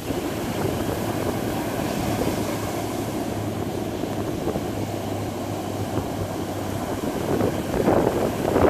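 Ocean surf breaking and washing on the beach, mixed with wind rumbling on the microphone, swelling louder near the end.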